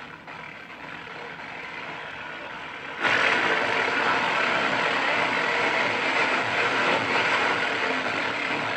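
Marc NR-82F1 transistor shortwave radio hissing with static from its speaker, jumping louder about three seconds in.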